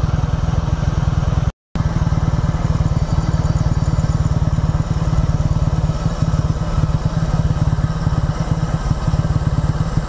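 Motorcycle engine running steadily while riding, a rapid even pulse. The sound cuts out completely for a moment about a second and a half in.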